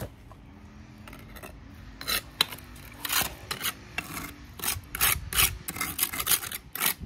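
A small metal hand shovel scraping over brick, working gritty fast-setting concrete mix into the joints between the step bricks. The strokes are quiet at first, then from about two seconds in come as a run of irregular rasping scrapes, one or two a second.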